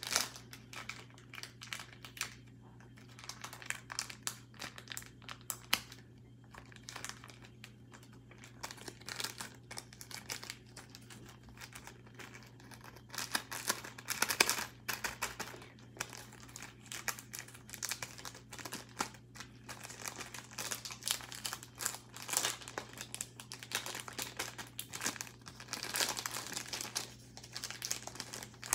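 Slime being kneaded, poked and stretched by hand, giving irregular sticky crackles and crinkly clicks, with a few louder clusters. A steady low hum runs underneath.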